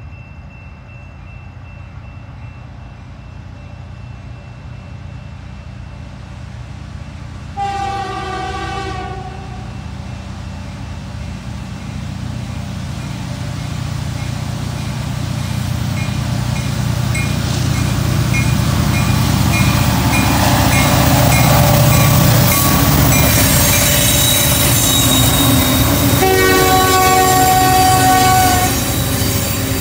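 CN freight train approaching and passing, its diesel locomotives' rumble building steadily to a loud pass-by. A short horn blast of several chimes sounds about eight seconds in, and a longer one near the end as the locomotives go by.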